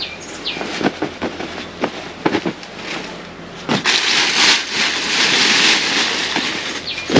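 Rustling and crinkling of camp bedding being handled: a run of scattered crackles, then a louder, longer rustle about four seconds in.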